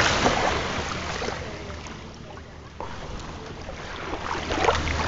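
Beach surf and wind on the microphone, a rushing noise that dies down to its quietest about halfway through and builds again near the end.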